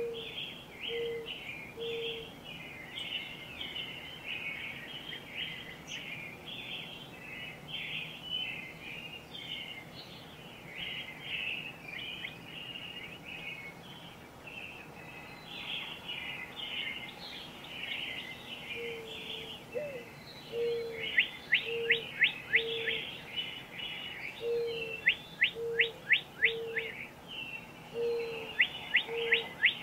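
Dawn-chorus-style woodland birdsong: many birds singing at once in a busy, overlapping high chorus. A low short note repeats about once a second at the start and again through the last third. From about two-thirds of the way through, groups of sharp, quick sweeping notes stand out as the loudest sounds.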